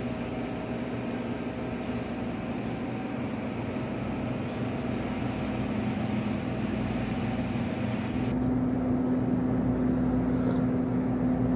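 Steady machine hum with a low droning tone, as from an appliance running. About eight seconds in, the higher hiss drops away and the low tone stands out more.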